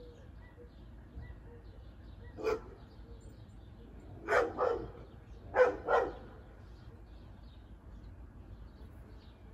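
A dog barking: one bark about two and a half seconds in, then two quick pairs of barks around four and six seconds.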